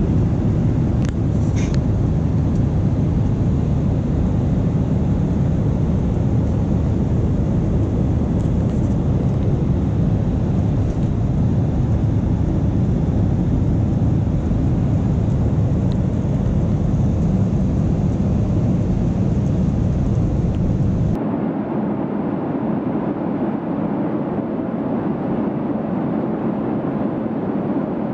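Steady, deep cabin noise of a Boeing 737-800 airliner in flight, with a few faint clicks early on. About three-quarters of the way through, it drops suddenly to a quieter, thinner hum.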